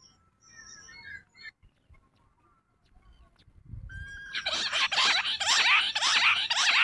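Faint chirps of small birds, then about four seconds in a bush quail breaks into a loud, rapid chattering call of many quick notes that keeps going.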